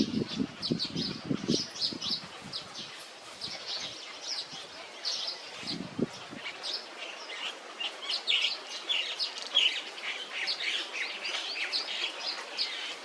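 Small birds chirping busily: many short, high chirps overlapping throughout. Low rustling knocks in the first second and a half and once about six seconds in.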